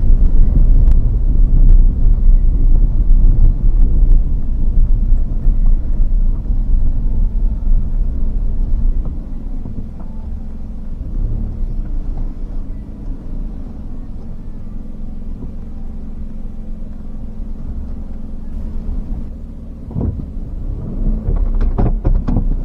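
Steady low rumble of a vehicle on the move, easing about nine seconds in, with a few short knocks near the end.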